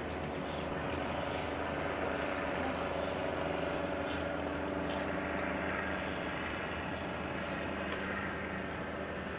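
A steady engine drone over a haze of distant city noise, swelling slightly a couple of seconds in and then easing off.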